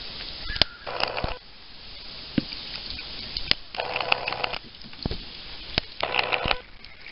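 Kayak paddling on a calm river: three splashes from the paddle blade, about two to three seconds apart, with sharp knocks in between.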